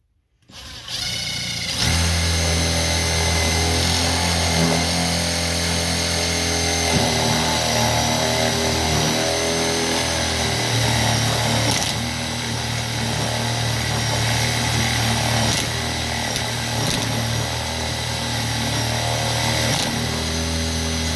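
Aldi Ferrex 20V cordless impact driver boring a 32 mm paddle bit into wood, running continuously under load. It starts about half a second in and runs at a steady pitch. The large bit gives it a bit more trouble than a smaller one.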